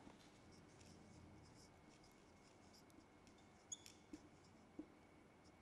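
Faint scratching and squeaking of a marker writing on a whiteboard, in short strokes, with a few slightly louder ticks in the second half.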